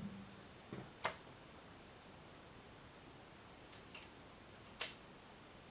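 Faint steady high-pitched whine with a faint even pulsing over it, and a few light clicks about a second in and near the end.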